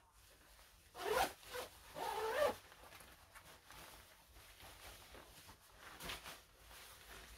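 A zipper on a bag or pouch being drawn twice in quick succession, with a shorter, fainter zip later on and soft handling of the fabric between.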